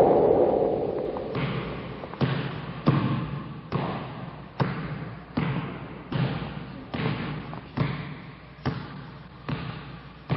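A basketball dribbled on a hard court: steady, even bounces a little under a second apart, starting about a second and a half in. A loud noisy sound fades out at the start.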